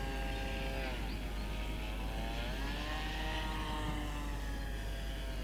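Brushless electric motor and propeller of an RC model warplane in flight, heard from a camera on board: a steady whine with its pitch dropping about a second in, climbing again a couple of seconds later and dropping once more near the end as the throttle is eased and opened. The propeller is unbalanced, and its vibration is working the motor's mounting screws loose.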